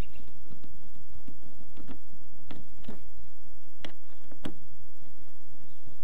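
A hand screwdriver driving a screw into a plastic kayak hull, giving a string of short sharp clicks at uneven intervals, about one every half second.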